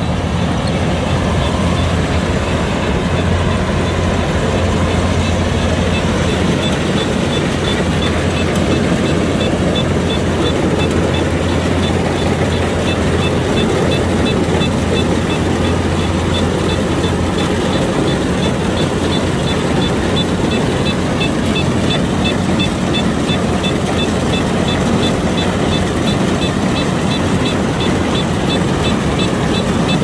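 Kubota DC-105X combine harvester running steadily while harvesting rice: a dense, even machine drone of the diesel engine and threshing mechanism. The low engine hum eases a little past the halfway point, and a faint, regular ticking runs through it.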